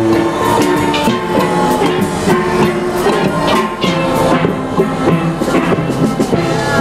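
Steel pan orchestra playing live, many steel drums struck in a quick rhythm with held ringing notes, backed by drums.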